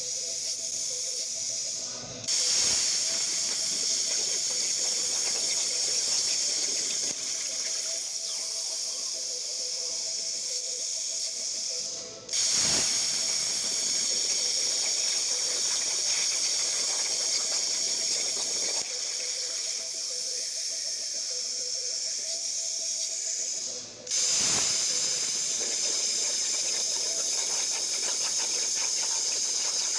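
Hypertherm Powermax1250 plasma torch on a CNC table cutting steel plate: the steady, loud hiss of the plasma arc and its air jet. The hiss cuts out for a moment three times, about 2, 12 and 24 seconds in, and restarts each time as a new cut begins.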